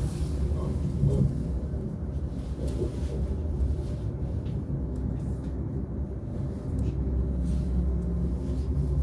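Lastochka electric train running along the line, heard from inside the passenger carriage: a steady low rumble of wheels on track.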